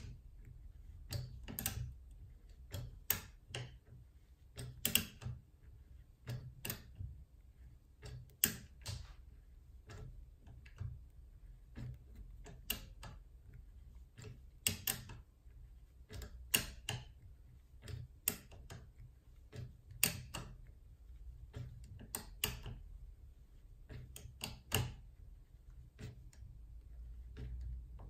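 Turbo decoder pick working inside a JUWEL 4x4 double-bit safe lock: irregular sharp metal clicks, about one or two a second, as the wheel is turned under tension and the lock's wafers are picked.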